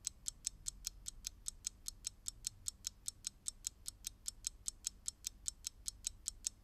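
Quiet, fast, even clock-like ticking, about five ticks a second.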